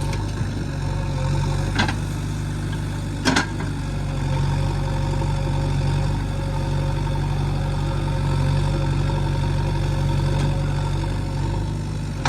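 JCB 3DX backhoe loader's four-cylinder diesel engine running steadily while it works. Two sharp knocks come about two and three seconds in.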